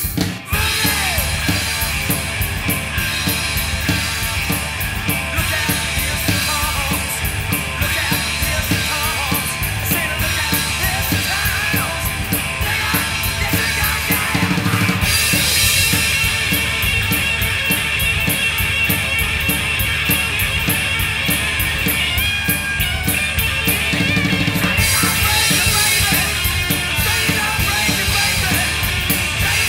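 Rock drum kit played hard in a driving beat with crash cymbals, together with loud hard-rock music. The cymbal wash grows heavier about halfway through.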